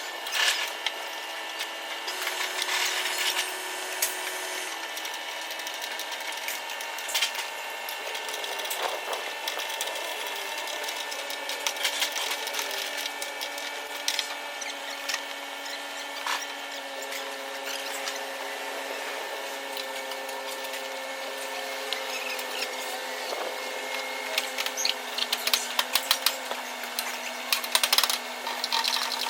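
Power tool running steadily on car body work, a motor whine that sinks slowly in pitch, with scattered clicks and scraping.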